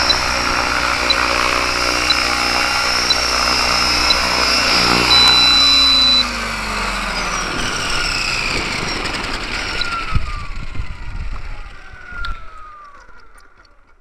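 Align T-rex 550 electric RC helicopter, running on a 6S lipo, hovering with a steady whine from its motor and rotors; a high steady tone sounds for about a second. The power then drops and the rotors spool down with a falling whine that fades away.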